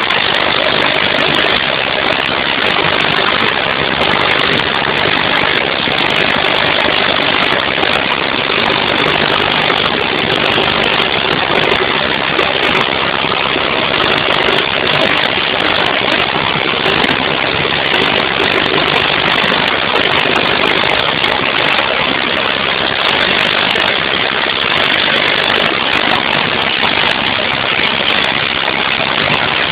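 Industrial 10,000 psi, 150 L/min high-pressure water blaster running, a loud, steady engine-and-pump noise that does not change.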